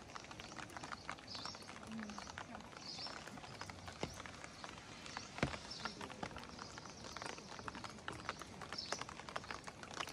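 Rain falling on a pond and the trees around it: a steady patter of many separate drops hitting the water and leaves.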